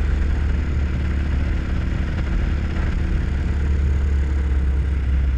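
RPS Hawk 250 dual-sport motorcycle's single-cylinder engine running at a steady cruise, with wind noise rushing over the microphone.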